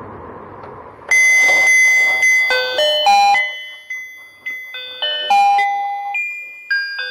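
Electronic tune from a battery-powered rotating fishing game toy: a melody of bell-like beeping notes, each starting sharply and fading. The tune starts about a second in, after faint noise.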